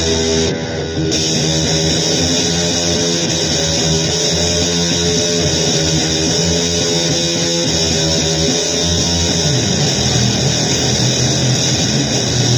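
Loud distorted guitar music in a noisy blues vein, a dense and steady wall of sound; about three-quarters of the way through, the low notes shift to a new pitch.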